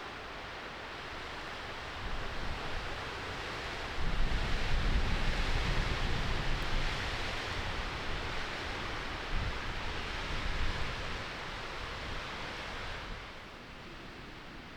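Strong gusting wind rushing, with low rumbling buffeting on the microphone. It swells about four seconds in, then eases near the end.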